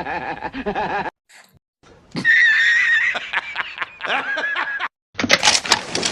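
Meme sound clips: high-pitched, cartoonish laughter with a wobbling squeal, after a short gap. A burst of noisy clattering sound effects starts near the end.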